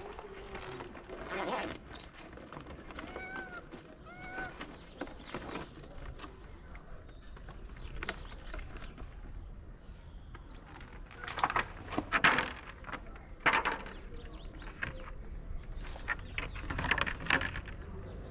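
Clear plastic food tray crinkling and clattering as it is handled and set down on concrete, in several sharp bursts from about eleven seconds in, loudest around twelve to fourteen seconds. About three and four seconds in come two short stray-cat mews.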